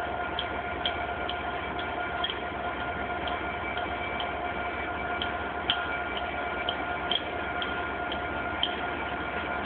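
Steady railway-station background hum with a thin steady whine. Faint regular ticks come through it about twice a second.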